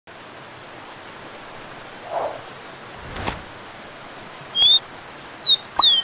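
Rufous-collared sparrow singing over the steady rush of a waterfall. The song starts about four and a half seconds in with two clear level whistles, then clear whistles that slide down in pitch. A soft knock comes about three seconds in.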